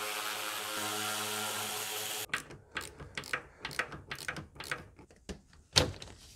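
A small power driver runs steadily for about two seconds, backing out the 8 mm screws that hold the mass airflow sensor. It is followed by a run of irregular light clicks and taps, one sharper knock near the end.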